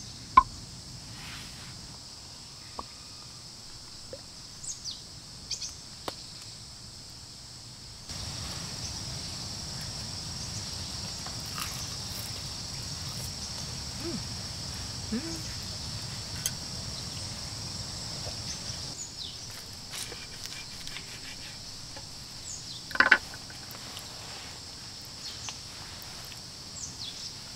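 A steady, high insect chorus, with scattered light clicks and knocks of tableware on a wooden serving board: a sharp knock about half a second in and a short clatter of knocks about 23 seconds in. The low background noise steps up about eight seconds in.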